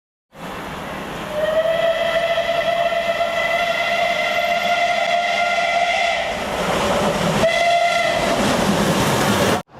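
Steam locomotive whistle over a steady hiss of steam: one long blast of about five seconds that fades out, then a short toot near the end before the sound cuts off suddenly.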